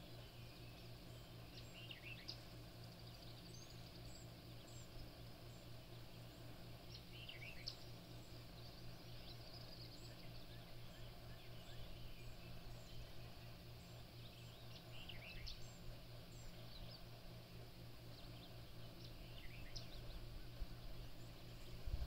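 Scattered bird chirps and calls, faint and intermittent, over a steady low hum.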